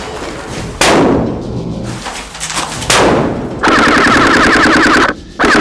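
Two loud bangs about two seconds apart, each ringing out, then a long burst of full-auto airsoft rifle fire, a fast, even rattle that breaks off briefly and starts again near the end.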